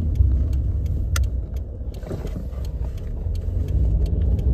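Low road and drivetrain rumble inside a 2005 Toyota Corolla's cabin as the car slows toward a stop, with a few light rattles. A steady low hum comes in near the end.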